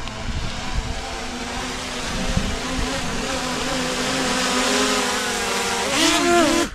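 Quadcopter drone descending close overhead on its automatic low-battery return-to-home, a steady multi-toned propeller whine that grows louder. Near the end the pitch wavers as the motors change speed.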